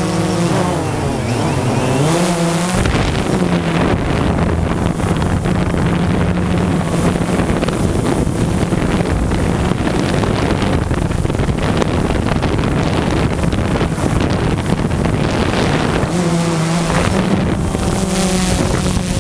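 Quadcopter drone's motors and propellers whining as it flies, heard from the drone's own camera, with wind rushing over the microphone. The whine slides up and down in pitch for the first few seconds and again near the end; between, a steady hum sits under heavy wind rush.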